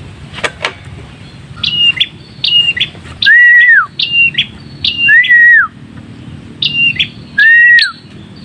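Red-headed prenjak calls played from an MP3 with the caught bird answering: short, sharp high double notes alternating with a louder, longer whistle that rises, holds and drops, the pattern repeating about every two seconds. Two clicks about half a second in.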